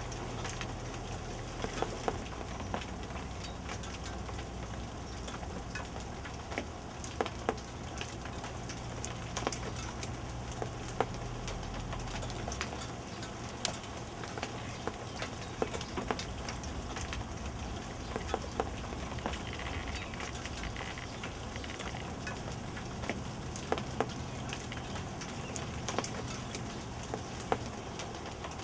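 Hail and rain falling, a steady hiss with scattered sharp ticks of stones striking hard surfaces.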